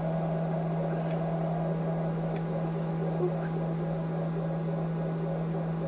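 Steady low electrical-sounding hum over a faint even background hiss, with no other distinct sound.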